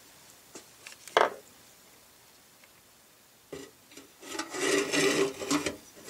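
Autolite carburetor body knocking and scraping against the metal rim and walls of a parts-cleaner can as it is worked down into it: a few light clicks and one sharp knock about a second in, then a couple of seconds of rubbing and scraping near the end.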